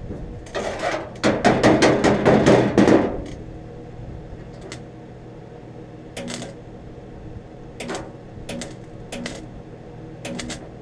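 Arc welder tack welding a small sheet-steel patch into a rust hole in a truck tailgate: a crackling weld lasting about three seconds near the start, then several short crackling tacks.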